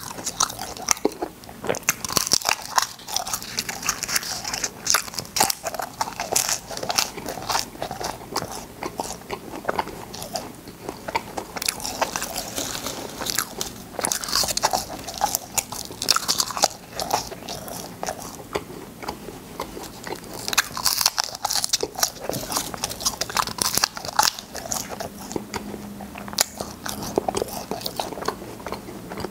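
Close-up crunching and chewing of cola space candy: a dense, irregular run of sharp crunches and crackles.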